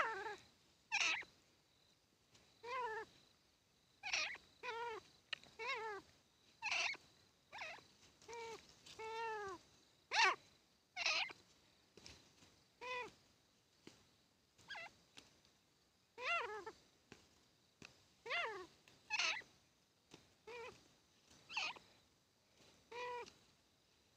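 Grey francolin giving short, repeated calls, roughly one a second and irregularly spaced, some coming in quick pairs.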